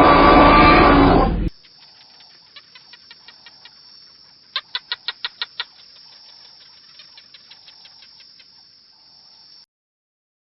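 A loud animal roar ends about a second and a half in. Then comes a quiet series of rapid, evenly spaced chirps over a steady high hiss, with a louder run of about seven chirps in the middle.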